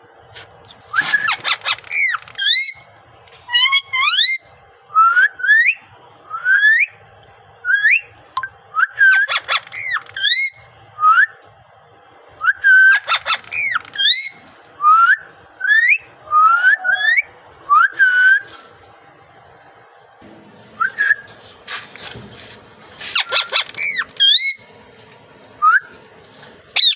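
Pet parrot whistling: a long run of short, sharply rising whistles, about one a second, with a few harsh squawk-like bursts among them.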